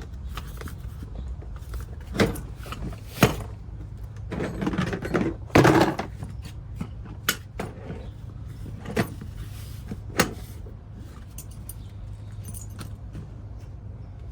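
Milwaukee Packout gear being handled and latched onto a rack-mounted Packout plate: a string of separate clicks and knocks over about ten seconds, the loudest a rattling clatter about six seconds in, over a steady low hum.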